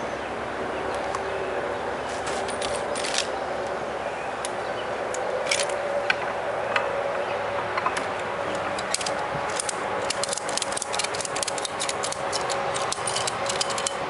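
Ratchet strap being tightened around a wooden beehive: a few scattered metallic clicks, then a fast run of ratchet-buckle clicks through the last few seconds, over a steady hum.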